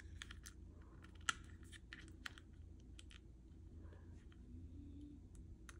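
Faint, irregular clicks and taps of small plastic parts being handled: the movable eye of a collectible figure being adjusted.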